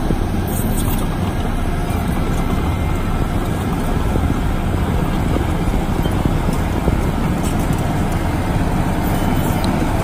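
LiuGong 6122E single-drum road roller's diesel engine running steadily as the machine drives over the soil, a continuous low-heavy rumble.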